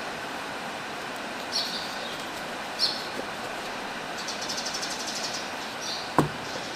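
Light plastic scraping and rustling as a new paper air filter element's rubber gasket is pressed into the groove of a Daihatsu Cocoa's plastic airbox, with a quick run of fine ticks about four seconds in. A single sharp knock near the end as the plastic airbox lid is set back down, over a steady background hiss.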